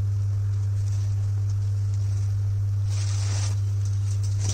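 Clear plastic protective bag rustling as a flat-screen TV is handled and slid out of it, with one louder burst of crinkling about three seconds in. A steady low hum runs underneath.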